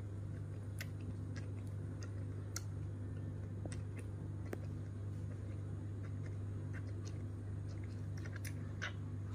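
Baby monkey suckling milk from a feeding bottle: scattered small wet sucking and smacking clicks over a steady low hum.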